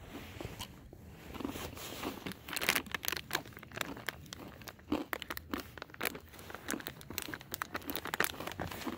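Packaging being handled, crinkling and rustling, with irregular sharp crackles.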